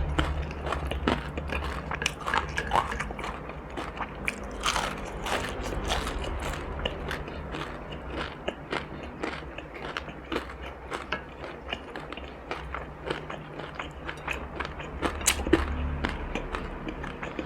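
A person biting and chewing crunchy food close to the microphone: many irregular crisp crunches throughout, over a low steady hum.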